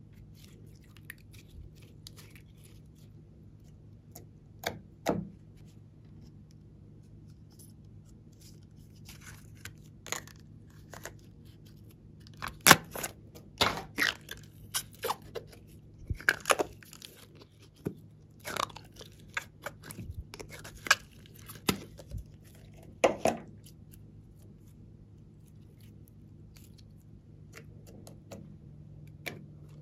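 Clear glitter slime being stretched and squeezed by hand, giving irregular sharp pops and crackles over a faint steady hum. The pops start about four seconds in and die away a few seconds before the end.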